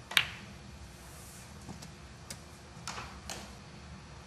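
Snooker balls clicking: one sharp strike just after the start, then four or five fainter knocks of ball on ball over the next few seconds.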